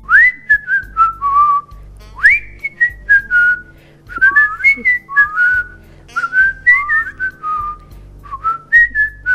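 A man whistling a wandering tune through pursed lips. The phrases swoop up to a high note and then step back down, again and again.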